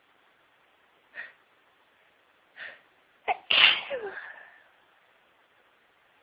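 A woman with a cold sneezing: two short catching breaths about a second and a half apart, then a sharp, loud sneeze a little past halfway that trails off within about a second.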